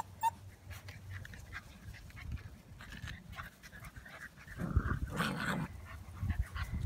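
Seven-week-old golden retriever puppies playing, moving about and scuffling, with a louder burst of noise about five seconds in.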